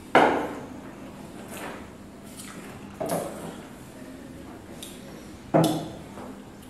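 Three sudden knocks about two and a half seconds apart, each dying away over half a second, the first the loudest: drinking glasses being set down on a wooden table during a wine tasting.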